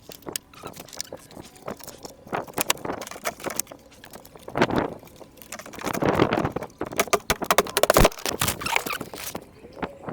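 Irregular clicks, knocks and scrapes of hands-on work on a car door, with louder bouts of scraping about halfway through.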